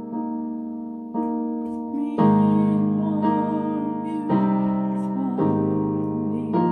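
Yamaha portable digital keyboard in a piano voice, played with both hands: sustained chords in E flat, a new chord struck about once a second, each ringing and fading into the next.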